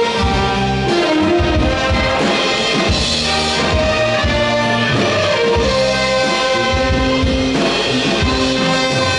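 Instrumental passage of a Korean trot song, with trumpet and trombone playing the melody over band accompaniment with a steady beat and no singing.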